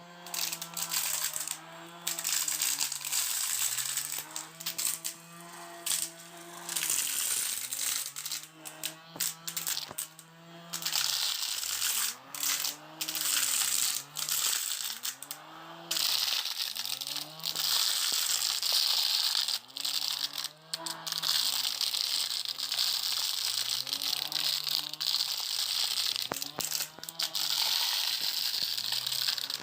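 Small electric motor of a homemade mini vacuum cleaner whining. Its pitch repeatedly sags and climbs back every second or two, over a hiss of rushing air and scattered rattling clicks.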